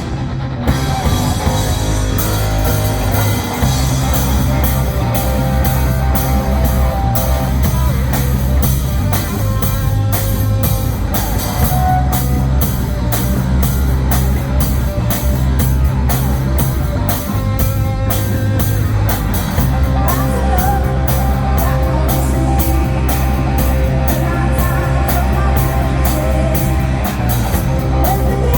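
Rock band playing loud: electric guitar and drum kit over a heavy low end, with a steady beat.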